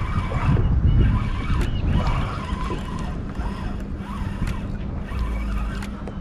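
Wind buffeting the microphone, a heavy low rumble that eases after about two seconds. A steady low hum comes in about two seconds in, and there are scattered small clicks.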